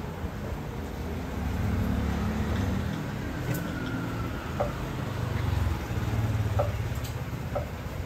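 A motor vehicle's engine running close by on the street, a low rumble that swells twice, with a few light clicks over it.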